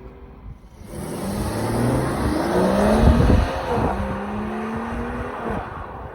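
BMW 540i's B58 turbocharged 3.0-litre inline-six accelerating on its stock exhaust: the engine note climbs in pitch to its loudest about three seconds in, drops sharply just before the four-second mark, then rises again more gently before fading near the end.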